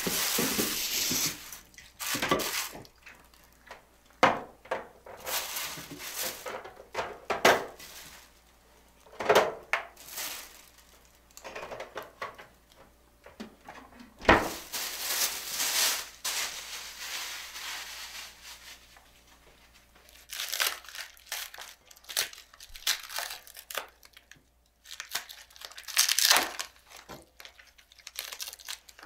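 Paper food wrapping crinkling and tearing in short bursts as it is handled and unwrapped, with a single heavier thump about midway.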